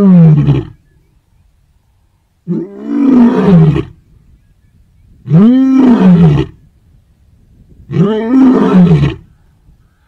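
Lion roaring: one long call ending just after the start, then three more about two and a half seconds apart, each rising and then falling in pitch.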